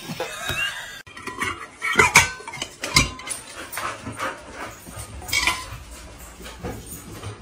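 A dog's short vocal sounds, with clinks of dishes in between.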